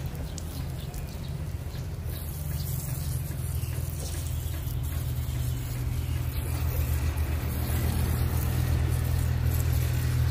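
An engine running with a steady low hum that grows gradually louder toward the end.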